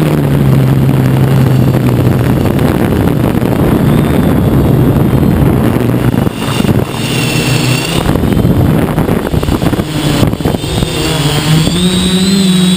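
Hexacopter's electric motors and propellers heard from the onboard camera: a loud, steady buzzing hum with wind rush. Its pitch shifts with the throttle, dipping briefly a little after the middle, and a higher whine rises near the end.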